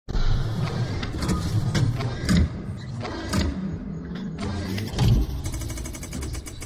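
Sound effects for an animated channel intro: a low, engine-like rumble under a rapid string of sharp mechanical hits and whooshes.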